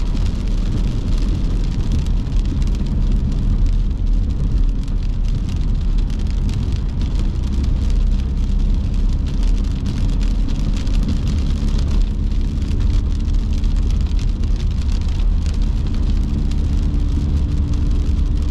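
Inside a moving car on a wet road: steady engine and road rumble with tyre hiss, and light rain ticking on the windscreen.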